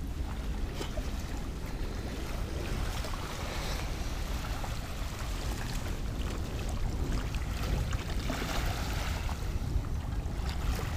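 Wind on the microphone and small lake waves lapping at a muddy shore, a steady low rumble with a soft wash of water.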